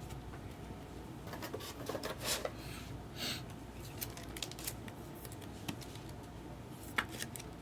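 Trading cards being handled and flipped through one by one: soft card-on-card slides and rustles with scattered light clicks, and a sharper click near the end.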